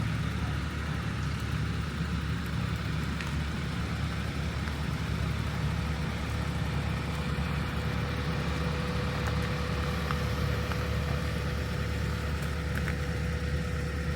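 Steady low rumble of motor-vehicle engines running, with a faint steady whine becoming clearer about halfway through.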